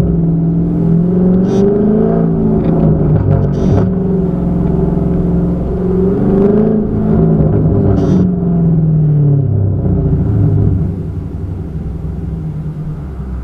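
Dodge Scat Pack HEMI V8 with a catless exhaust, revving up and down, with a few sharp pops from the exhaust as the revs fall. Near the end the revs drop and it settles to a lower, steadier rumble.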